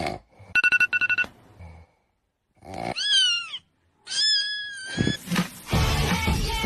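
Digital alarm clock beeping in a quick burst of about six beeps, then a cat meowing twice in long, high cries, the first rising and falling. Music starts near the end.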